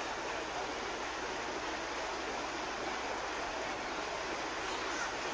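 Small waterfall on a stream, water rushing steadily over rocks into a pool.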